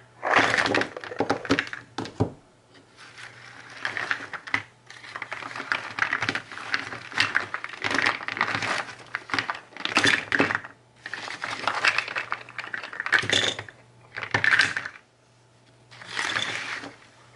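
Injection-moulded polypropylene modules with brass push-fit fittings clattering and knocking against each other as they are set down and shuffled by hand on cardboard, in repeated bursts of sharp clicks.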